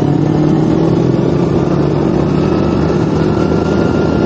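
Honda Astrea Legenda underbone motorcycle's small single-cylinder four-stroke engine running steadily while the bike is ridden, with road and wind noise around it.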